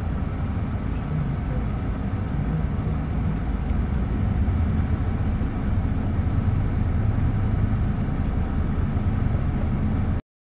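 Steady low rumble of engine and road noise heard from inside a moving vehicle, cutting off suddenly near the end.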